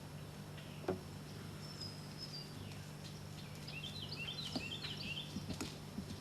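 Outdoor ambience: a small bird sings a quick run of short chirps about four seconds in, over a steady low hum. There is a single sharp click about a second in.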